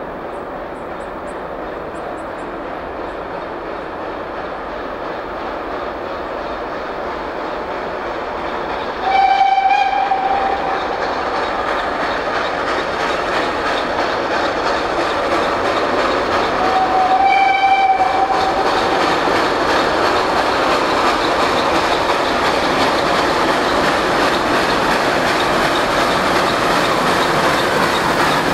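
Harz narrow-gauge 0-4-4-0 Mallet steam locomotive 99 5906 approaching with its train, its working and running noise growing steadily louder. The steam whistle sounds two long single-pitch blasts, about nine seconds in and again about eight seconds later.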